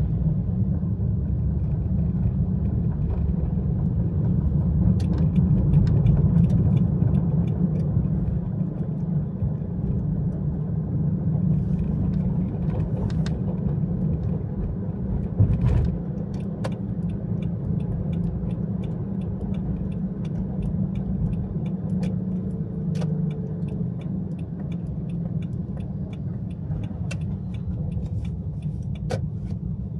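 A car being driven, with a steady low rumble of road and engine noise. Scattered sharp ticks sound over it, more of them in the second half.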